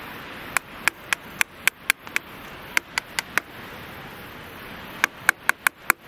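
Sharp chopping strokes on wood, in three quick runs of about four strokes a second, over a steady hiss.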